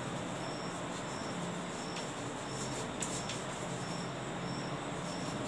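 A cricket chirping, short high chirps about twice a second, over a faint low hum, with a few faint taps of chalk on the board.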